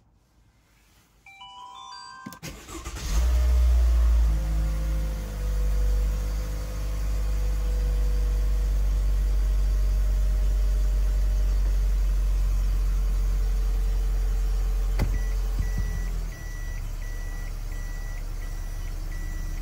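A short rising run of electronic tones, then the Toyota Esquire's 2.0-litre four-cylinder petrol engine cranks, catches, flares and settles into a steady fast idle after the start. Near the end there is a click, the engine note dips as it is put into reverse, and the reverse warning beeper starts a steady repeating beep.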